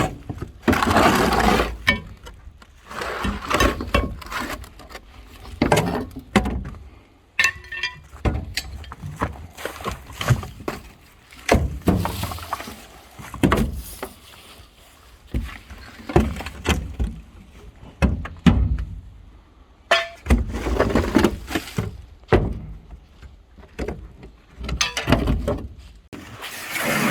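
Irregular knocking, clanking and rattling of hard objects being handled, with many sharp knocks and short scraping or rustling stretches in between.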